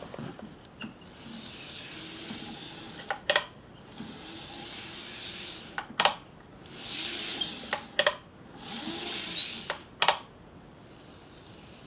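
Small plastic items being handled: four sharp double clicks about two seconds apart, with rustling and sliding between them.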